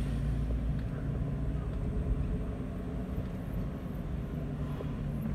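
Steady low rumble of a van's engine and road noise, heard from inside the cab while driving.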